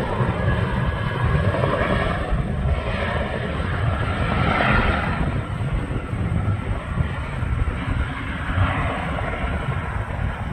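Boeing CH-47F Chinook tandem-rotor helicopter running: a dense, steady noise weighted to the low end, with a hiss that swells about four to five seconds in and again near the end.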